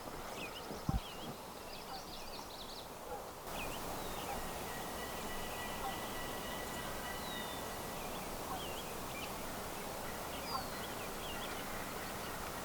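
Wild turkey tom gobbling, with small songbirds chirping around it and a brief thump about a second in.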